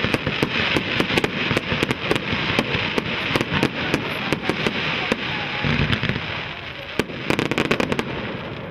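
Fireworks display: a dense run of sharp bangs and crackling over a steady hiss, with a deep boom about six seconds in and a quick volley of cracks near the end.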